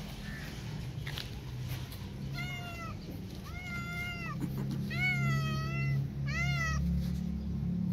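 Adult calico cat meowing four times about a second apart, each meow rising and then falling in pitch, the third drawn out longest.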